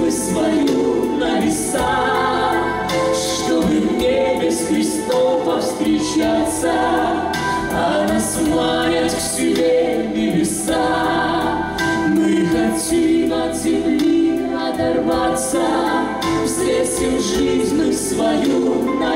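A mixed vocal group of one man and two women singing a Christian song together in harmony through microphones, without a break.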